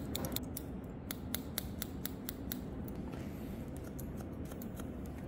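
Haircutting scissors snipping through a held section of damp hair, trimming it to length: a quick series of crisp snips, about four a second, broken by a short rustle a little past three seconds before the snipping resumes.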